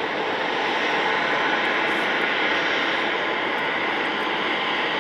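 Airliner engines running, a steady broad rush of noise that swells slightly about a second in and then holds.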